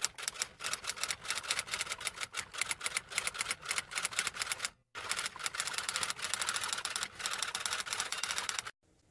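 Typing sound effect: keys clattering in fast, uneven strokes, in two long runs with a brief pause about halfway through.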